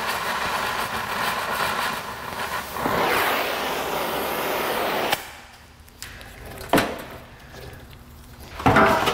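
Oxy-fuel cutting torch hissing steadily as it burns out a seized, rusted trailer-hitch fastener. It grows louder about three seconds in and shuts off abruptly about five seconds in. After that comes a single knock and then metal clanks near the end.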